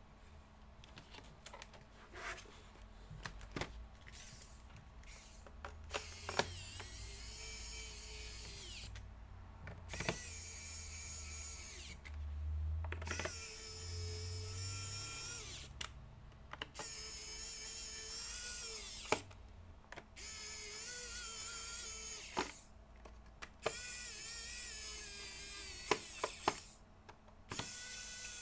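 Electric screwdriver running in about seven short bursts of two to three seconds each, a high whine that rises as the motor spins up and drops off as it stops.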